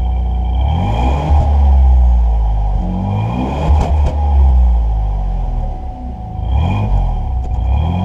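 Car engine revved about three times with an aluminium turbo-whistle insert in the tailpipe, the exhaust note rising and falling with each blip. A thin high whistle rides over the exhaust and grows stronger as the revs climb. There are a couple of sharp clicks around the middle.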